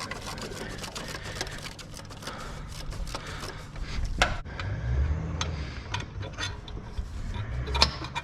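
Ratchet clicking in quick runs as a 12 mm bolt holding the belt tensioner is backed out, with a few sharper metal knocks, the loudest about four seconds in.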